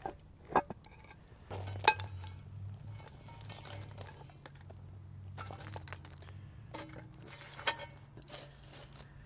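Hot wood coals tipped from a metal shovel onto a cast-iron pan lid, clinking and knocking against the iron a few times, sharpest about two seconds in and again near the end. The coals are being piled on for more top heat while bread bakes inside.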